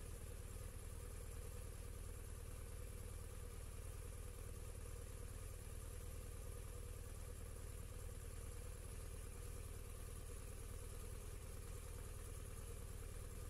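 A vehicle engine idling steadily: an even low hum with no revving.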